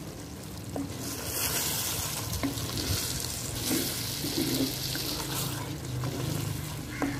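Wooden spoon stirring sliced ridge gourd in a clay pot, with a steady sizzle of the gourd cooking in its own released water and soft knocks and scrapes of the spoon against the pot. The sizzle grows louder about a second in.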